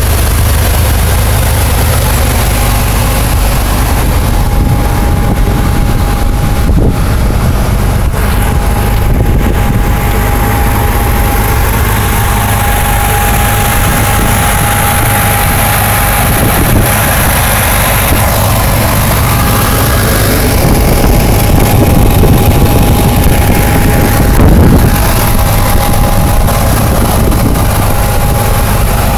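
1982 Honda CBX's air-cooled inline-six engine idling steadily, with a steady high whine running over it. It is a new-old-stock engine running like new after 32 years of storage.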